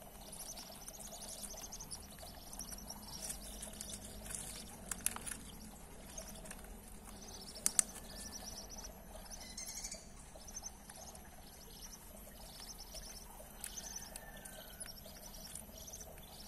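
Quail chicks peeping with short, high, thin calls repeated throughout, with a few sharp taps in the middle as they are fed from a stick.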